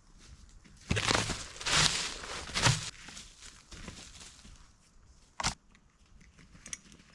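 Rustling, crunching steps: three loud ones in the first three seconds, then a single sharp click about five and a half seconds in.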